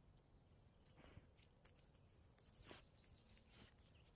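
Near silence, with a few faint short scuffs and rustles from a dog moving over rock and rubbing its face in grass and pine needles.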